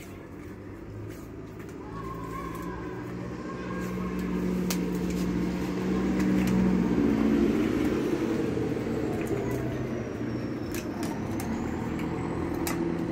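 A motor vehicle's engine running at a steady idle, growing louder over the first half and then holding, with scattered light clicks and knocks from rubber hoses and fittings being handled.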